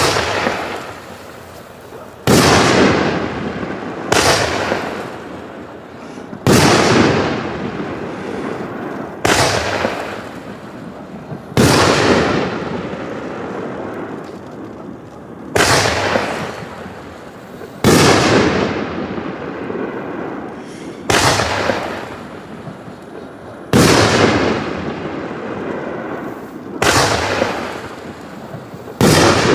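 Zenith Specialties 'Air Raid' consumer firework going off: a string of about a dozen sharp bangs, one every two to three seconds, each followed by a noisy tail that fades over a second or two.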